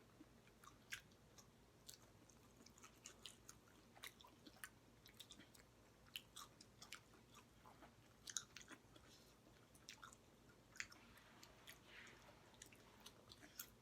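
Faint chewing and wet mouth clicks of people eating chicken legs: scattered small ticks and smacks with no steady sound.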